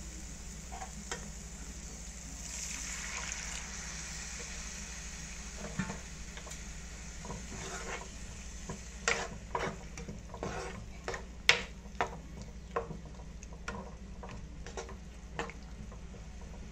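Water added to a hot non-stick pan of frying onions and capsicum sizzles, then a plastic spatula stirs the mixture, clicking and scraping against the pan in irregular taps, over a steady low hum.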